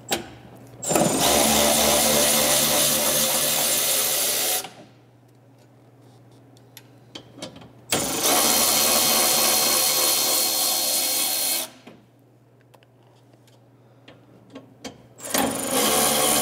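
Cordless electric ratchet with a 10 mm socket running in three bursts of about four seconds each, spinning bolts out; the third burst starts about a second before the end.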